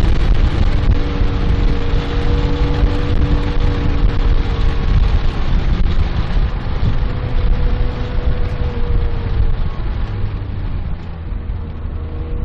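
Porsche 997.1 GT3's 3.6-litre flat-six running hard at track speed, heard inside the cabin under heavy road and wind rumble. It quietens about ten seconds in as the car slows for a corner.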